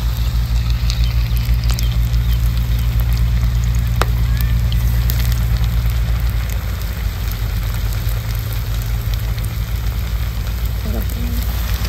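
Besan-battered chicken pakoras deep-frying in hot oil in a pan: a steady sizzle with scattered small crackles and pops, over a loud, steady low rumble.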